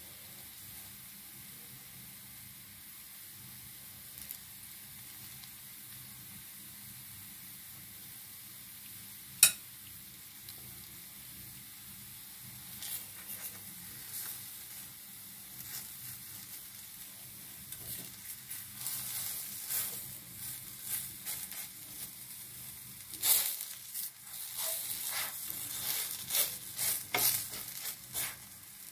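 A thin patishapta crepe sizzling faintly in a non-stick frying pan, with one sharp click about nine seconds in. In the second half a spatula scrapes and taps against the pan more and more busily as the filled crepe is folded and rolled.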